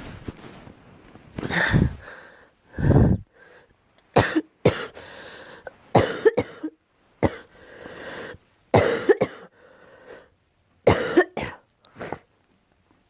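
A girl coughing over and over in short fits of one to three coughs, a second or two apart, with fainter breaths drawn between the fits.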